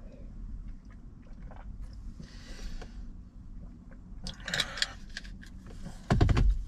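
Drinking from an aluminium energy-drink bottle-can, then its plastic screw cap scraping and clicking as it is twisted shut about four and a half seconds in. A short, dull low thump comes near the end.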